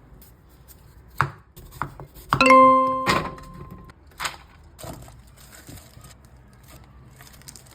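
Kitchen handling sounds: several sharp clicks and knocks, and about two and a half seconds in a struck metal utensil or vessel gives one clear ringing ding that fades out over about a second and a half.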